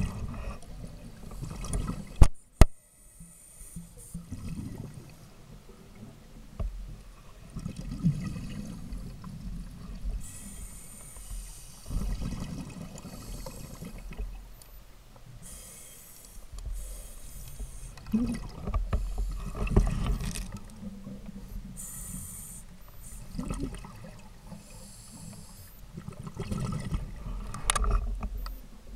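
Muffled underwater noise picked up by a submerged camera: a low, uneven rumble of moving water that swells and fades, with two sharp knocks about two and a half seconds in and a few brief hisses.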